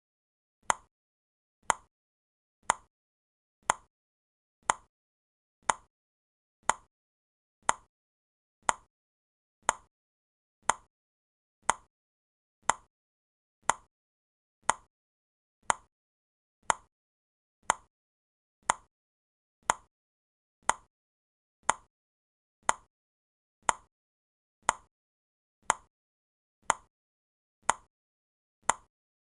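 Countdown timer's clock ticking steadily, one sharp tick about every second.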